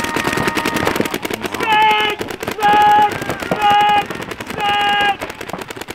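Many paintball markers firing rapidly as a point starts, a dense stream of pops throughout. Over the shooting a horn holds a tone for about a second, then sounds four short, loud blasts about once a second.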